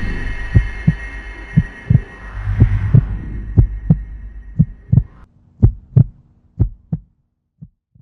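Closing music fading out over a slow, heartbeat-like bass pulse: paired low thumps about once a second. The sustained tones drop away about five seconds in, leaving only the thumps, which fade out near the end.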